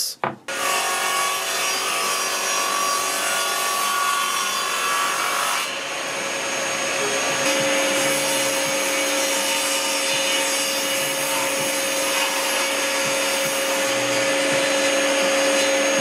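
Table saw starting up about half a second in and running steadily while a pine board is pushed through it, the blade trimming the board's rough edge straight for edge-gluing. The tone of the saw shifts lower about halfway through.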